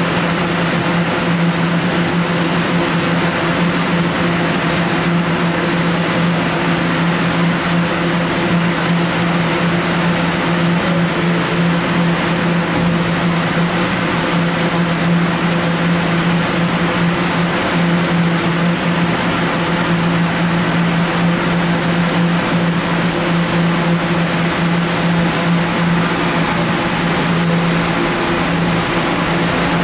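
Kawasaki R211A subway car standing at a station with its on-board equipment running, a steady hum with a low tone over an even rush of air.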